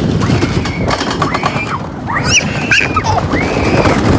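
Riders screaming and shrieking on a fast amusement ride: a string of short, rising and falling cries, one climbing high about two seconds in. Under them is a steady rush of wind buffeting the microphone.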